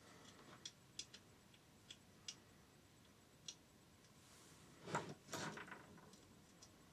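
Faint, sparse clicks and ticks of small metal engine parts and tools being handled, with a louder short clatter about five seconds in.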